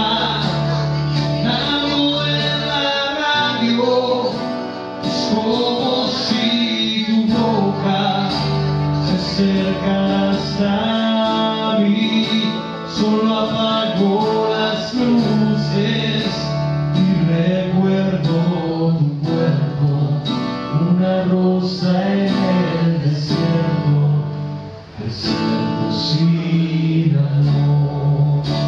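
A man singing a song into a microphone while strumming an acoustic guitar, live and unaccompanied by other instruments.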